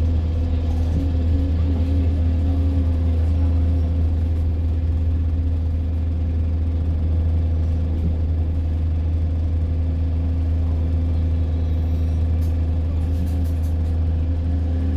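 A bus's engine and drivetrain running, heard from inside the passenger cabin as the bus travels: a steady low drone with a fainter held tone above it.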